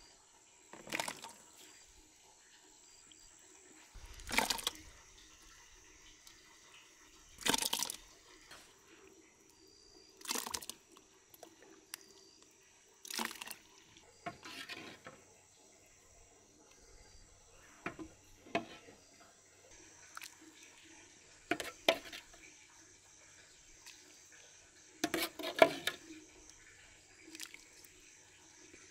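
A long metal ladle scooping thick rice porridge out of a large pot and pouring it into a plastic insulated container, a short wet splash with each pour, roughly every three seconds.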